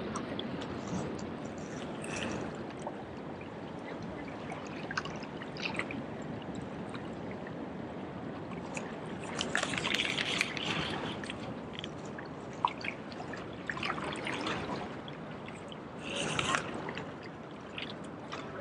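Small waves lapping and splashing against rock jetty boulders, with irregular sloshing surges every few seconds over a steady wash of water.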